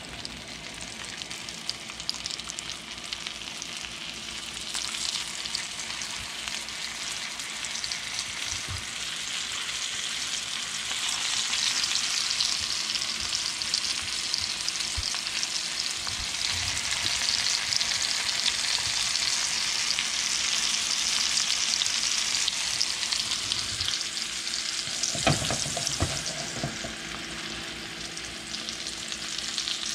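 Two whole flour-dredged brook trout sizzling in hot butter in a cast-iron skillet, the frying hiss getting louder about ten seconds in. There is a brief knock or two near the end.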